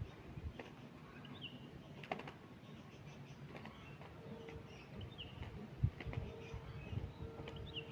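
Zebra doves scuffling as they fight: irregular taps and soft thumps, with a few short high chirps scattered through.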